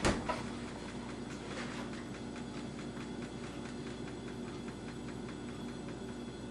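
Refrigerator door shutting with a sharp thud right at the start, a smaller knock just after, then a steady low hum.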